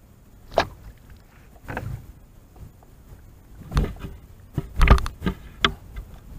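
Knocks and thumps from handling in a small fishing boat, including the camera mount being touched: single knocks about half a second and two seconds in, then a cluster of louder thumps from about four to six seconds in.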